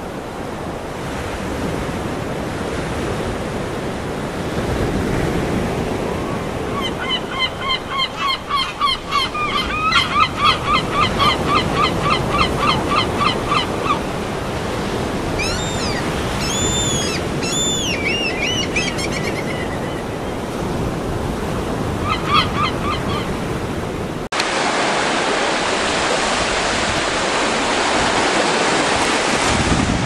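Ocean surf washing steadily, with birds calling over it. About 7 seconds in comes a fast run of short, repeated harsh notes lasting several seconds, then a few higher, arching calls, and a short burst of the fast notes again. Near the end the sound cuts abruptly to a louder, even rush of surf.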